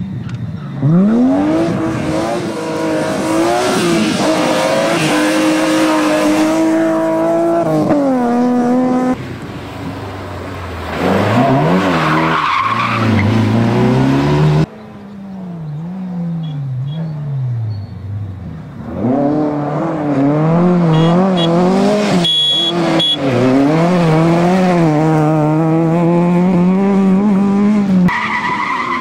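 Rally car engines at full throttle as several cars pass one after another, revving up and falling back through gear changes. The sound changes abruptly twice, about nine and fifteen seconds in, as one car gives way to the next.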